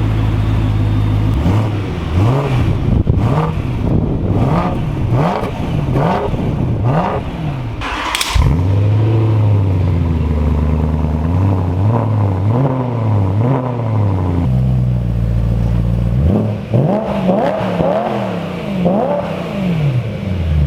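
BMW E93 M3's 4.0-litre V8 through a Remus axle-back exhaust, idling and then blipped in quick repeated revs, in three groups with idle between. A single sharp crack about eight seconds in.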